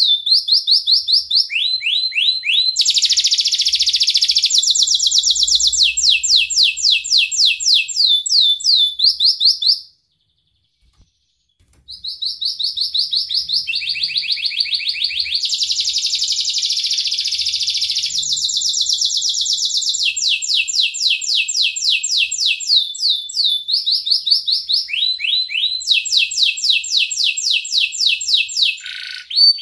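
Domestic canary singing a long song: fast rolls of rapidly repeated high notes, each roll switching to a new note pattern every second or two. The song breaks off for about two seconds a third of the way in, then goes on.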